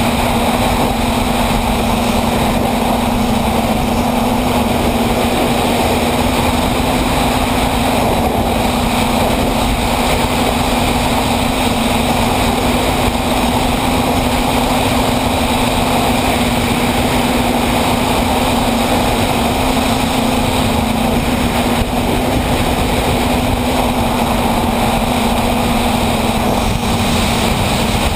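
Electric motors and propellers of an FPV tricopter, heard from the GoPro on board, running in steady forward flight as a loud, even drone whose pitch barely changes.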